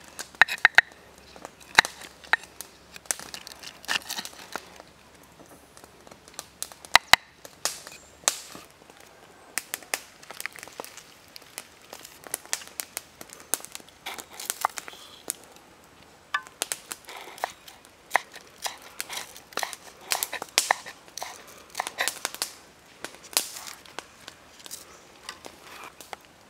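Large kitchen knife chopping and slicing shallots, chili and green stems on a wooden chopping block: irregular sharp knocks, some in quick runs, with crinkling and crackling in between.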